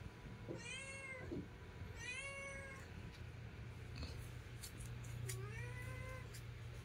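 Newborn kittens mewing: three thin, high calls, the last one rising in pitch.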